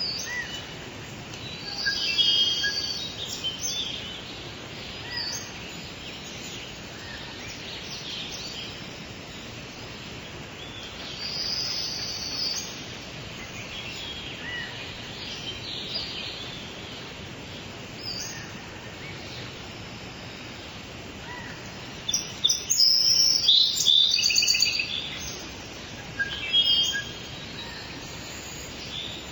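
Steady rain hiss with songbirds singing and chirping over it, the calls coming in bouts, with the busiest stretch of song about two-thirds of the way through.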